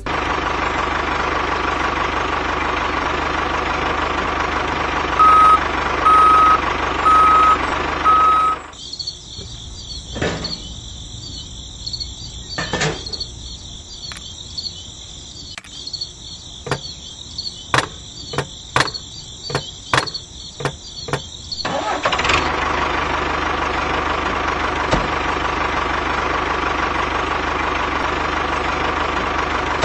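Steady tractor engine sound running, with four short horn beeps about five to eight seconds in. From about nine seconds the engine gives way to a quieter high whine with scattered clicks and knocks, and the engine sound returns a little after twenty-two seconds.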